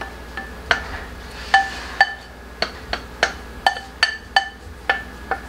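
A ceramic bowl knocked again and again while grated carrot is tipped out of it into a pot: about a dozen sharp, irregular clinks, each ringing briefly at the same few pitches.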